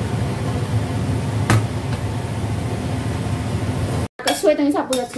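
Cabbage sizzling as it is stir-fried in a stainless steel wok over a steady low hum, with one sharp knock of the spatula against the pan about a second and a half in. After an abrupt cut about four seconds in, a person's voice.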